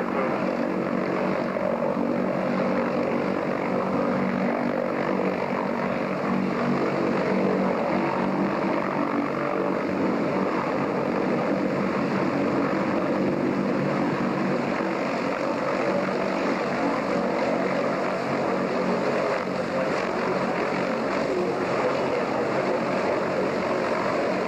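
Steady drone of a ferry's engines heard on board, a constant mechanical hum with a low, even pitch and a wash of noise over it.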